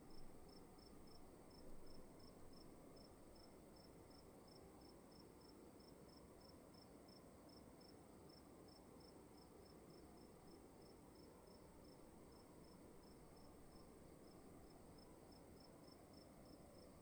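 Faint crickets: a steady high trill and a chirp repeating about two to three times a second, over a low hiss of room tone.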